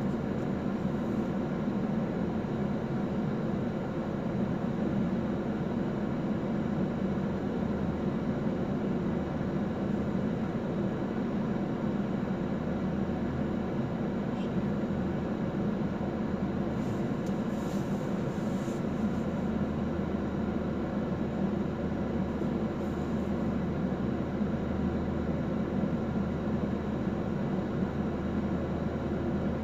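Steady low engine hum heard from inside a car.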